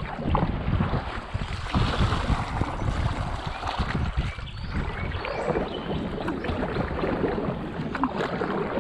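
Kayak paddle blade splashing through the water in a series of sweep strokes, turning a wide sit-on-top kayak around, with wind rumbling on the microphone.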